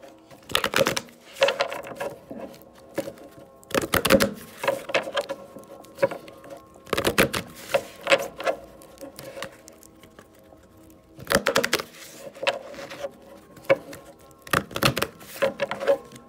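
A deck of oracle cards being shuffled by hand, quick runs of card flicks and clicks coming in bursts every few seconds. Soft background music plays underneath.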